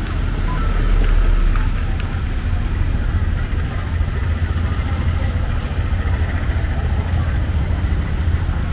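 Street traffic: motor vehicles running past with a steady low rumble that swells about a second in.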